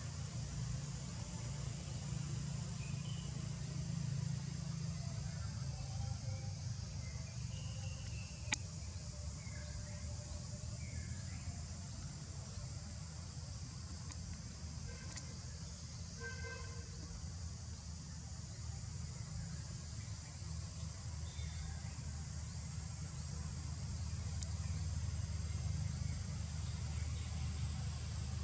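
Outdoor ambience: a steady low rumble and a steady high hiss, with scattered faint short chirps and one sharp click about eight and a half seconds in.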